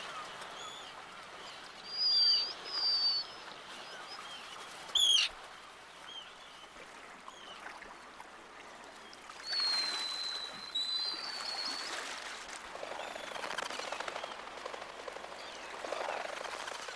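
Black guillemots calling: thin, high whistled notes, some in pairs, with one quick falling note about five seconds in, over a steady wash of sea water.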